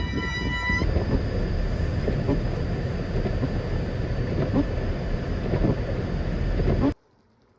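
A steady horn-like chord sounds and stops just under a second in, over a heavy low rumble with scattered knocks. The rumble cuts off abruptly about a second before the end.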